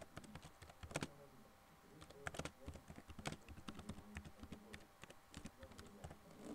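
Typing on a computer keyboard: faint, irregular key clicks in quick runs with short pauses between words.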